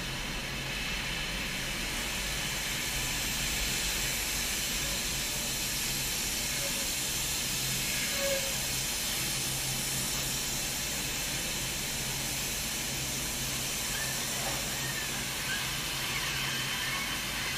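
Paint-shop robots spray-painting a car body: a steady hiss of spray in the booth over a steady low hum.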